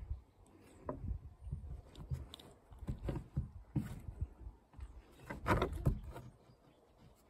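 Bernese mountain dog puppy pawing and nosing at a ball in a hole in a wooden board: irregular scrapes, taps and low knocks of claws and paws on the wood, loudest about five and a half seconds in.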